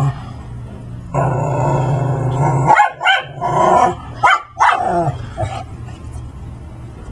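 A Brussels griffon growls low and steadily, then about three seconds in breaks into a quick run of four or five barks.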